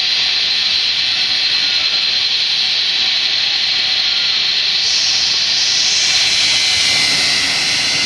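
Boeing 757's jet engines running at taxi power: a steady high whine over a loud, even hiss.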